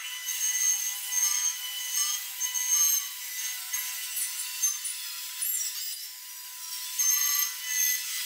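Woodworking machine's spindle cutter routing notches for finger (box) joints into the end of a solid wood board, a steady grinding cut with shavings flying. It is heard thin, with the low end cut away.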